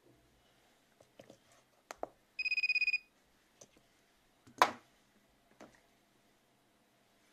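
A handheld MaxiTPMS TS508 tire-pressure sensor tool gives a short, rapidly pulsing beep of about half a second as it reads a TPMS sensor. Around it come clicks and knocks of the plastic sensors being handled, the loudest a sharp knock about two seconds after the beep.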